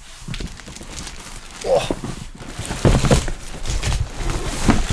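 A heavy cardboard box being opened and handled, with irregular knocks, thuds and rustling.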